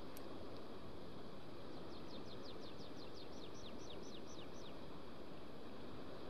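A small songbird sings a quick series of about fifteen high, downward-slurred notes over steady outdoor background noise, with a brief faint click just at the start.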